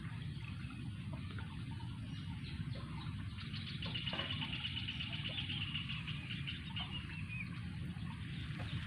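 Outdoor ambience: a steady low rumble, with a bird's high, rapid trill from about three and a half seconds in to about seven seconds, dropping slightly in pitch at its end.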